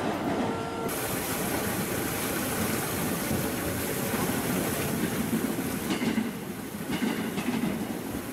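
JR West 225-series electric train running in toward the platform with a steady rumble, its wheels clattering over the rail joints in the last couple of seconds as it comes closer.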